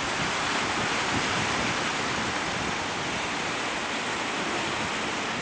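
Ocean surf breaking and washing over shoreline rocks: a steady rushing noise.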